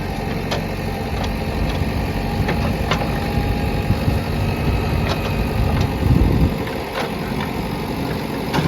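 Diesel engine of heavy machinery running steadily with a low rumble, rising briefly about six seconds in, with a few sharp clicks or knocks scattered through.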